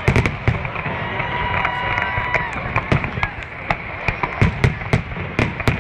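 Fireworks display bursting in quick succession: sharp bangs and crackles about three a second over a steady rumble, with a few high whistling tones in the middle.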